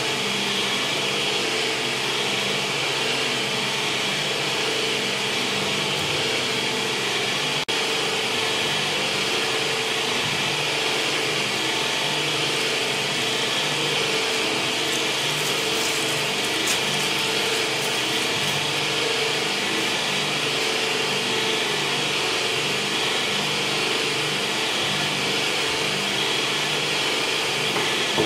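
Electric meat mincer running steadily with a stuffing horn fitted, its motor giving a constant whirring hum while pork intestine is filled with sausage meat.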